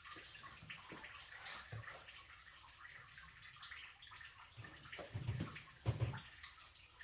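Water trickling steadily out of disconnected boiler pipework as the heating system drains, with a couple of dull knocks about five to six seconds in.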